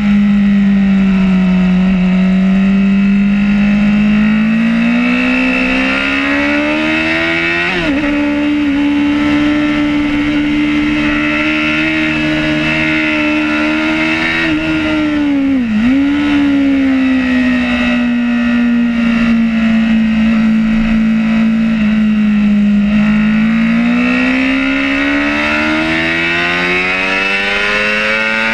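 Sport motorcycle engine at high revs, recorded onboard while lapping a track: its note sinks and climbs with the throttle, with a short break in pitch about a quarter of the way in and a brief sharp dip just past halfway, then climbs steadily toward the end, over steady wind rush.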